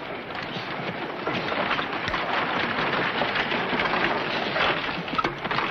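Horse-drawn wagon pulling up: hooves and rolling wooden wheels make a steady, dense clatter.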